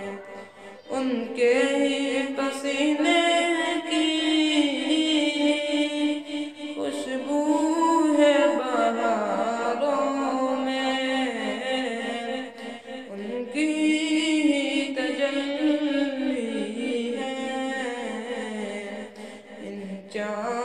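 An Urdu devotional kalam sung unaccompanied: a wavering solo melodic line over a steady held vocal drone, with no instruments. The singing dips briefly just after the start and again near the end.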